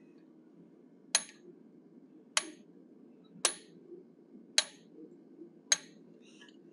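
Hand hammer striking an eighth-inch fuller held on hot steel, texturing the beard and sideburns of a forged bear head: five sharp metallic blows about a second apart, each with a brief high ring.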